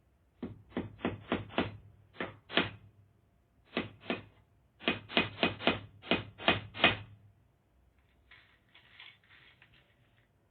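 Hammer driving nails into wood: runs of quick, sharp blows, about three or four a second, with short pauses between groups. The longest run, about eight blows, ends about seven seconds in, followed by a fainter light clatter.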